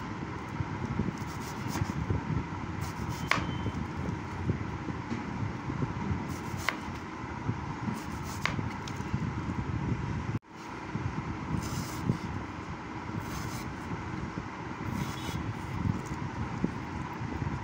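A chef's knife slicing an apple on a wooden cutting board, the blade tapping the board in a few sharp knocks a couple of seconds apart, over a steady background rumble. The sound drops out briefly about ten seconds in.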